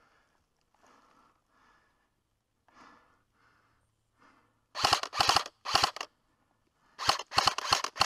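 Airsoft rifle firing short bursts of rapid clicking shots: three bursts about five seconds in, then a pause and a quicker string of bursts near the end.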